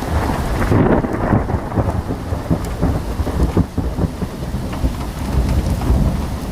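Thunderstorm sound effect: steady heavy rain with deep rumbling thunder that swells and fades.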